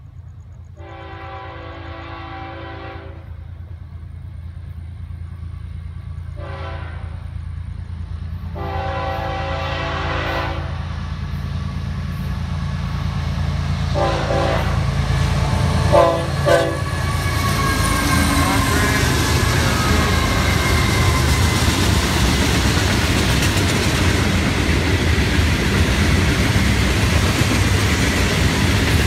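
Florida East Coast Railway diesel freight locomotives approaching and sounding a multi-tone air horn: a long blast, a short one, another long one, then three short toots. The engines' low rumble grows steadily louder. Once the locomotives are by, the freight cars' wheels rumble and clatter steadily on the rails.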